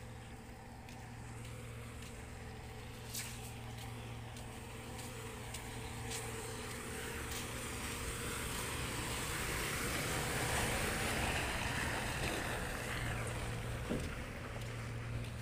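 Steady low hum of heavy construction machinery's diesel engine running. A louder rushing noise swells through the middle and eases off about thirteen seconds in, with a couple of small knocks.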